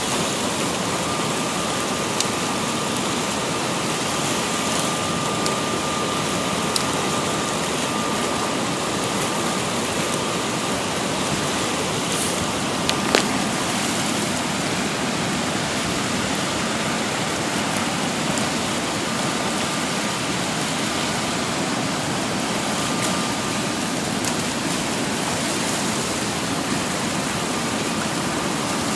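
River rapids rushing steadily below a dam spillway, the river running high and fast.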